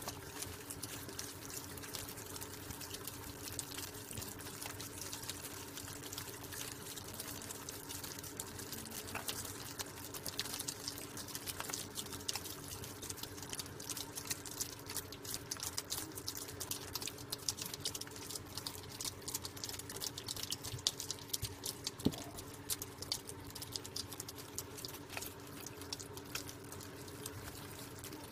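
A group of opossums eating noisily from a bowl: a dense run of small wet smacks and clicks from many mouths, over a steady low hum.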